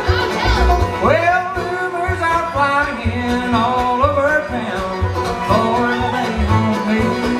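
Folk music in a bluegrass style: a singing voice gliding between notes over stringed instruments and a regular beat in the bass.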